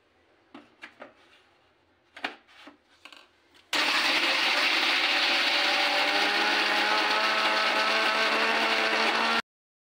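A Vijaylakshmi mixer grinder's small steel jar knocks a few times as it is set on the base, then the motor runs loud and steady for about six seconds, grinding green chillies with a little oil and salt into a coarse paste, its pitch rising slightly, and cuts off suddenly near the end.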